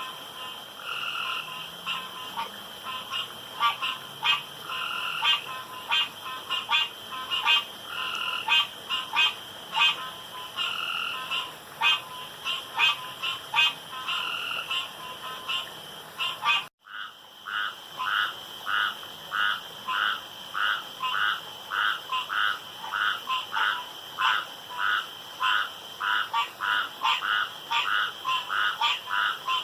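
Chorus of male frogs croaking, many short calls repeating and overlapping as they compete to call loudest and longest. About 17 seconds in, the sound drops out for an instant. After that, one caller repeats steadily about twice a second over the others.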